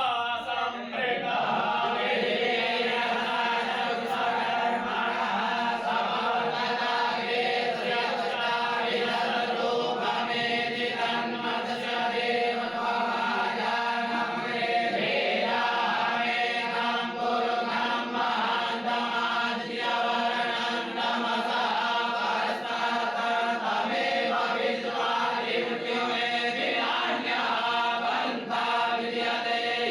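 Many voices chanting a mantra together in unison, a steady, unbroken recitation.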